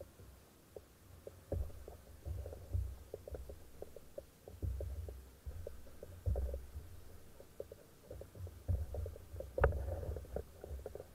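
Water slapping and gurgling against a kayak hull in low, irregular rumbles, with scattered small knocks and one sharper knock about three-quarters of the way through.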